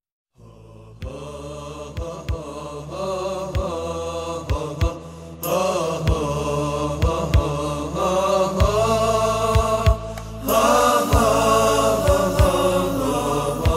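Background music: a song begins just after a brief silence, with singing over a steady low drone and a regular beat.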